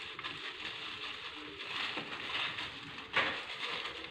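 Plastic-gloved hands squishing and kneading chicken leg pieces in a wet spice marinade in a glass dish, an irregular crinkling, squelching rustle. A single short, sharp knock about three seconds in.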